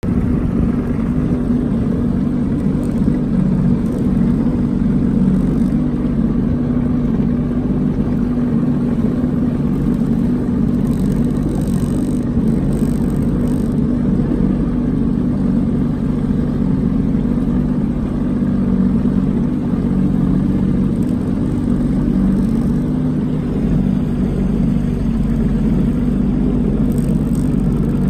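Small boat's engine running steadily, with an even low hum.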